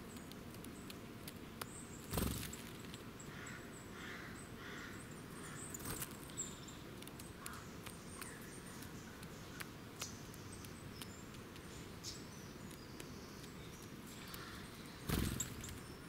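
Eurasian nuthatch at seed on the ground: two brief, loud wing flutters, about two seconds in and again near the end as it flies off. Between them come light pecking ticks and faint bird chirps.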